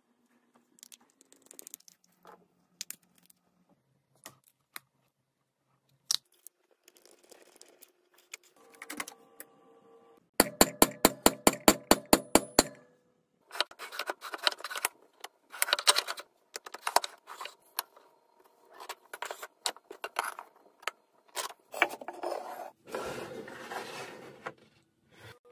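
Tool and handling noises: scattered clicks, then a fast run of about sixteen sharp clicks over two seconds, then a series of uneven scraping strokes.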